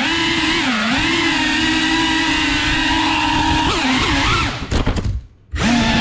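FPV quadcopter's brushless motors and propellers whining, the pitch rising and falling with the throttle. The whine stutters about four and a half seconds in, cuts out for half a second as the throttle is chopped in a manoeuvre, then comes back.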